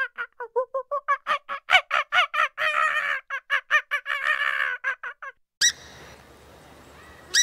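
A rapid, even run of nasal honking animal calls, about seven a second, with a couple of longer drawn-out notes, stopping just past five seconds. It gives way to a steady background hiss with two short sharp squawks from swamphens, one right after the change and one at the very end.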